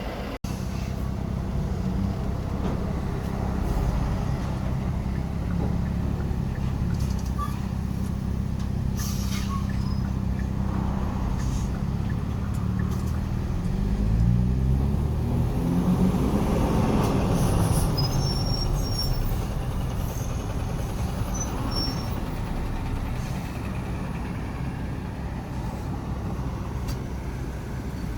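City street traffic: a steady low rumble of vehicle engines. About halfway through, a heavy vehicle passes, its engine pitch rising and then falling.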